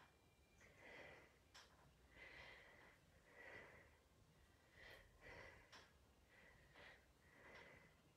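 Faint, rhythmic breathing of a woman doing incline press-ups, about one breath a second, with a few faint clicks.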